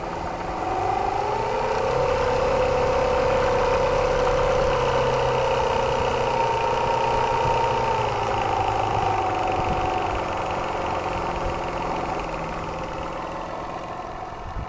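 Model Martin Bayliss twin-cylinder marine steam engine running under steam. Its pitch rises about a second in as it speeds up, holds steady, then slides back down from about eight seconds as it slows.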